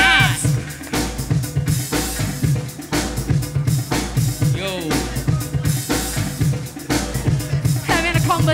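DJ playing breakbeat music through the PA, with a steady drum beat of kick and snare over a bass line. Short sliding pitched sounds come in about four and a half seconds in and again near the end.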